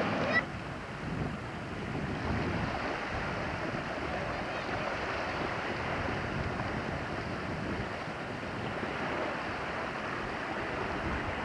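Steady wind buffeting the microphone, mixed with the wash of small waves on open water. A brief click sounds right at the start.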